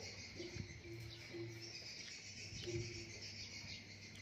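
Insects chirring steadily in a high, continuous chorus, with a low hum that comes and goes beneath it. A couple of brief soft sounds from the man eating noodles stand out, about half a second and nearly three seconds in.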